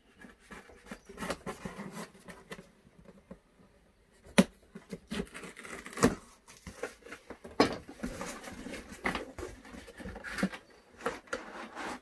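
Cardboard shipping box being opened by hand: a small blade scraping and slicing along the packing tape, then the cardboard flaps pulled open. Scattered sharp knocks and clicks, with a short quiet pause before the loudest knock.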